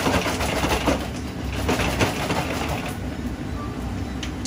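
Gas burner under a steel pork-rind frying kettle running with a steady low rumble. In the first half, bursts of crackling rustle as puffed pork rinds are handled in a metal tub.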